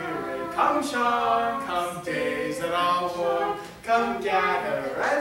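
A young performer's voice singing unaccompanied, holding drawn-out notes between short breaks.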